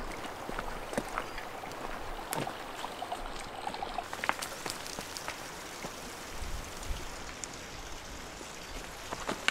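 River water flowing steadily, with scattered sharp clicks and knocks over it.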